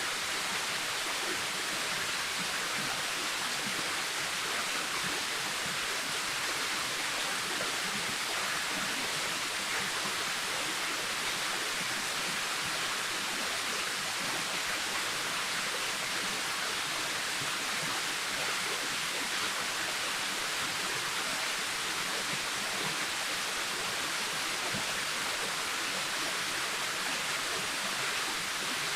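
Waterfall: water falling and splashing in a steady, even rush, strongest in the upper range.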